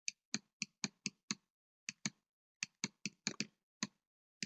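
Stylus tapping and clicking on a tablet as a word is handwritten: about fifteen short, sharp clicks at an uneven pace, with brief pauses between letters.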